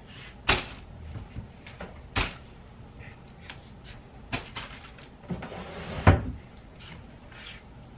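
Packing sounds: a handful of sharp knocks and bumps as clothes are handled and packed into a suitcase, with a rustle just before the loudest bump about six seconds in.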